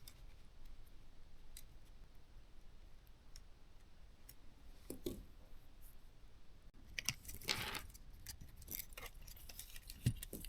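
Faint small clicks and taps of soldering tools against a drone circuit board while motor wires are soldered. There is a brief hiss about seven seconds in and a duller tap near the end.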